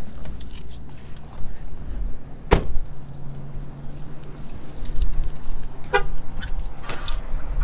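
Pickup truck door being opened, then shut with one sharp bang about two and a half seconds in, with keys jangling. A short horn toot near six seconds as the truck is locked, over a steady low hum.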